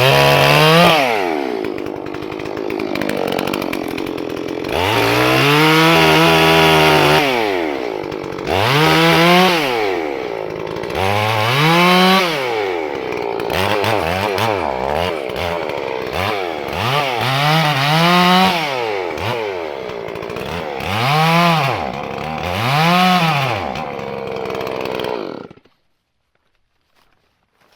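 Farmertec Holzfforma G466 two-stroke chainsaw, a Stihl 046 clone, revving up and dropping back about eight times while cutting wood. It is on its first break-in tank with the carburettor still set a little rich. The engine stops abruptly near the end.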